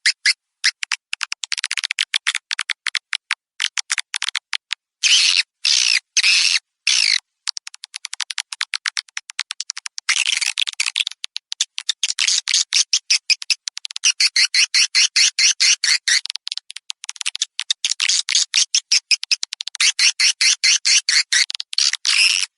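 Recorded swiftlet lure call: edible-nest swiftlets chirping and twittering in rapid runs of sharp, high chirps, several a second, thickening into denser twittering now and then. It is the kind of calling sound played in swiftlet houses to draw the birds in.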